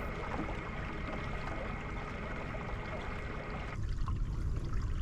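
Steady water noise, trickling and lapping, with a low rumble underneath; the sound shifts abruptly about four seconds in.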